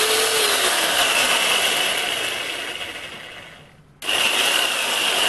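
Ozito 850-watt corded reciprocating saw running free, blade in the air, with a steady whine. From about two seconds in it slows and fades as the variable-speed trigger is eased off, nearly stopping, then just before four seconds it cuts back in suddenly at full speed.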